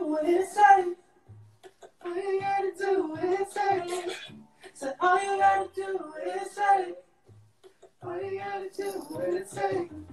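A song with a high sung vocal: phrases of a second or two, separated by short pauses, with a few short, low bass notes underneath.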